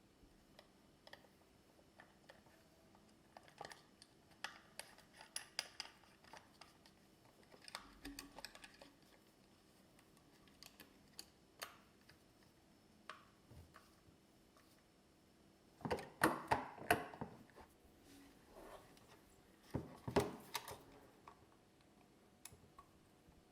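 Scattered light clicks and clatter of small hard objects being handled, with two louder bursts of clatter about two-thirds of the way through and again near the end.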